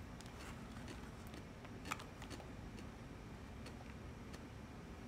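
Wooden chopsticks clicking lightly against a food dish during eating: a few faint clicks, one sharper about two seconds in, over a low steady room hum.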